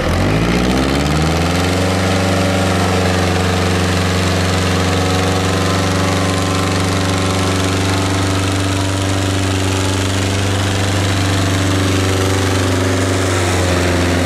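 Tractor engine running loud, rising in revs over the first two seconds, then holding steady at high revs, easing off slightly near the end.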